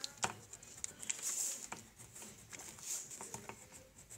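Coloured pencil scratching on notebook paper in short strokes, with light taps and clicks of the pencil and page.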